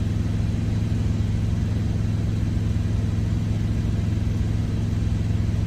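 Steady low hum of an idling truck engine, heard inside the cab.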